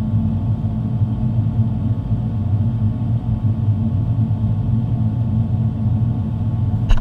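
Steady low rumble and drone inside the cabin of an Airbus A350 climbing out, from its Rolls-Royce Trent XWB engines at climb power. A short click sounds right at the end.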